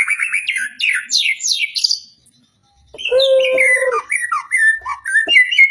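White-rumped shama (murai batu) singing: a fast run of sliding, chattering notes, a pause of about a second, then a new phrase that opens on a low held whistle and steps down through quick clear notes.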